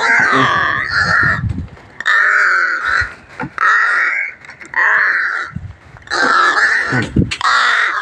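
A pet crow cawing over and over, loud and harsh, about six calls in a row roughly a second apart. Low thumps of the phone being handled sit underneath.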